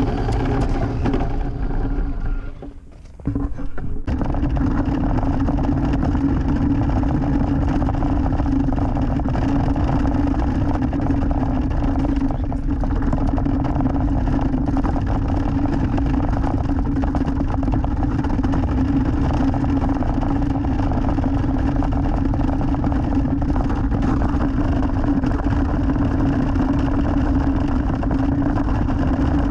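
Electric motor and gearbox of a scale RC truck running steadily, a constant whine over a rumble of plastic tyres and chassis on rough concrete, heard up close from a camera mounted on the truck. The sound drops away briefly about three seconds in, then resumes unchanged.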